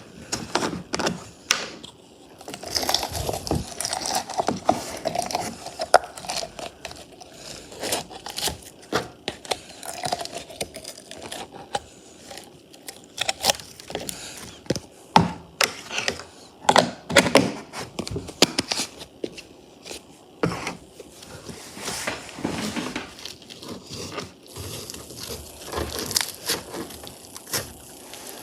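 Slime being squished and stretched by hand, with many small irregular crackles, pops and clicks over a soft sticky rustle.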